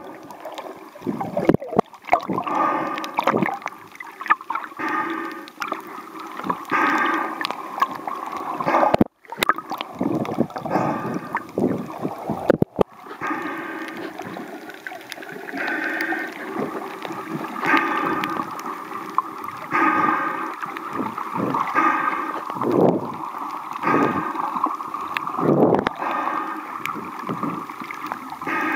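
Water gurgling and sloshing, recorded underwater, swelling and easing about every two seconds through the second half, with two brief dropouts in the middle.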